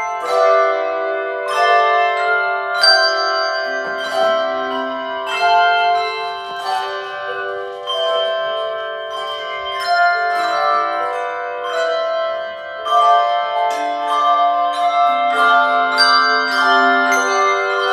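A handbell ensemble playing a tune: bells struck one after another, each note ringing on under the next, with a few lower notes held longer.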